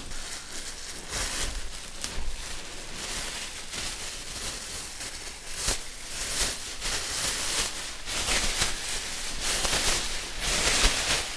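Thin Sherwin-Williams painter's plastic sheeting crinkling and rustling as it is handled and pulled apart, with irregular crackles.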